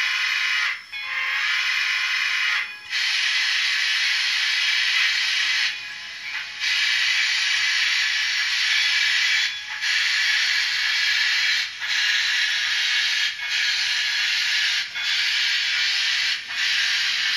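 Digital sound decoder in an HO scale model of a Santa Fe 4-6-4 steam locomotive, playing through the model's small, tinny speaker. A whistle sounds in the first few seconds. Then comes a steady loud steam hiss broken by short pauses that come closer together, settling at about one every one and a half seconds, as the locomotive gets under way.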